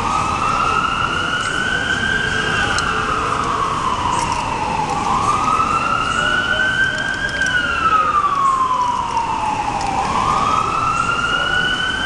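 A wailing siren, its pitch rising and falling slowly and evenly, one full cycle about every five seconds, over steady street noise.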